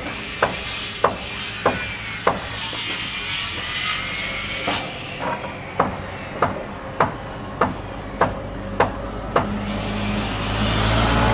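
Construction-site hammering: sharp, regular blows about every 0.6 seconds, in two runs with a pause in between, over a steady machinery hum. Near the end a louder machine noise swells up.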